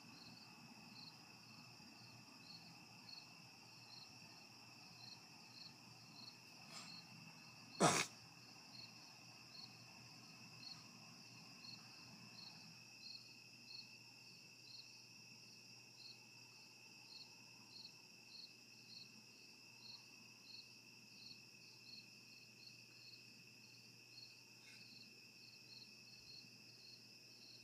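A cricket chirping faintly and steadily, about one and a half chirps a second, over a thin steady high tone. One sharp knock about eight seconds in is the loudest sound.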